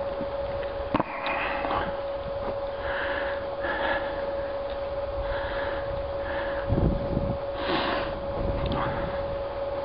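Several short sniffs over a steady faint hum, with a sharp click about a second in and a couple of low thuds around seven to eight seconds in.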